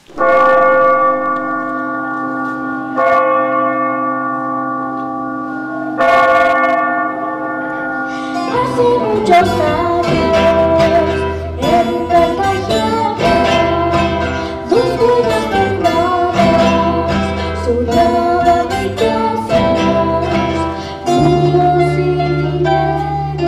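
Instrumental music: three long ringing chords struck about three seconds apart, then from about eight seconds in a busy plucked-string melody over a low bass line, with a new held chord near the end.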